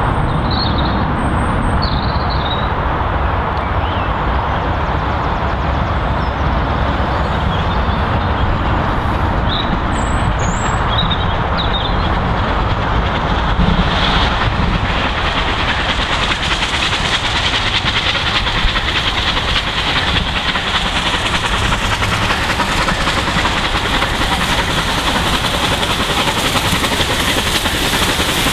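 Bulleid Battle of Britain class steam locomotive 34067 Tangmere hauling its train: first a steady rumble of the approaching train with birds chirping, then about halfway through the sound shifts to the engine working hard, its exhaust beats loud and dense.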